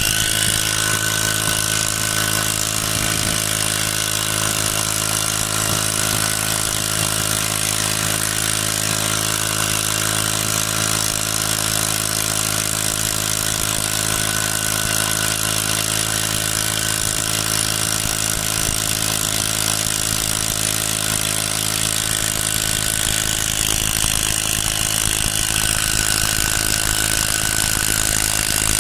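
Brush-cutter engine rigged to drive a small boat, running steadily at an even speed, with a constant hiss over it.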